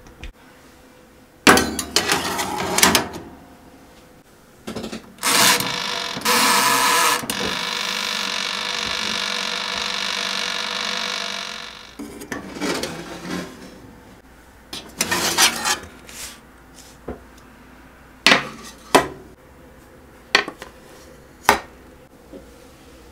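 A small toaster oven being loaded: a metal baking tray rattles as it slides onto the rack, the door and controls clack, and the oven runs with a steady hum for about five seconds. Later come sharp clicks and taps of metal trays and paper muffin cups set down on a wooden counter.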